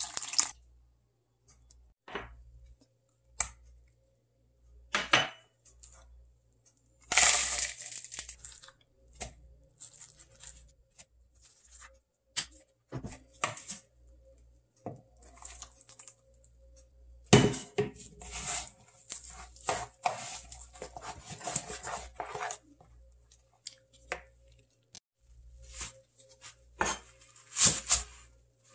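Kitchen handling sounds: liquid poured into a glass blender jar, then a spoon scraping and clinking against a bowl while seasoning is mixed, and near the end a knife cutting through chives onto a plastic cutting board in a few quick strokes.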